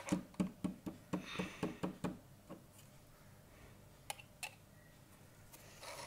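Plastic clicks and knocks of a toy drone's handheld remote controller being handled: a quick run of taps at about four a second for the first two and a half seconds, then two single clicks about four seconds in.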